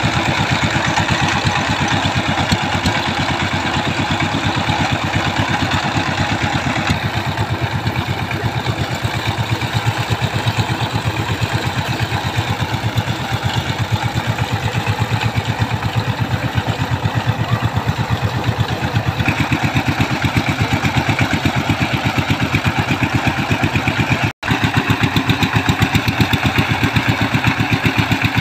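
Single-cylinder diesel engine of a two-wheel power tiller running steadily with a fast, even thump, working its rotary tines through wet paddy mud. The sound breaks off for an instant about 24 seconds in, then carries on.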